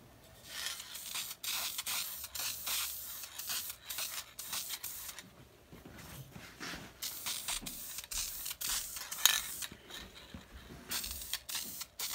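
Aerosol can of clear satin finish spraying onto wood in many short hissing bursts, with a pause of a second or two about midway.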